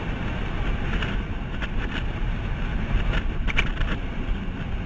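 Wind buffeting the microphone of a camera on a road bike descending at speed: a steady, low rumble of noise.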